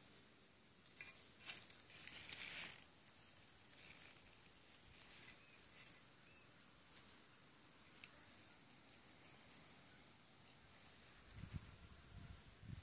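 Faint, steady, high-pitched insect trill that sets in about two and a half seconds in and keeps going, with a few soft rustles and clicks just before it and rumbling handling noise near the end.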